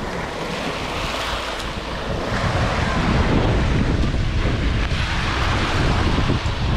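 Wind buffeting the microphone over the wash of waves breaking on a beach, growing louder a couple of seconds in.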